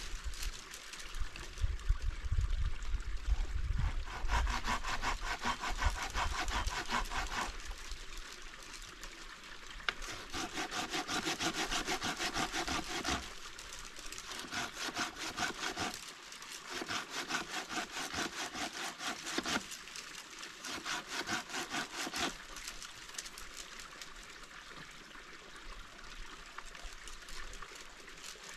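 Hand saw cutting through a tree branch: quick back-and-forth strokes in four spells, with short pauses between. A low rumble runs through the first few seconds.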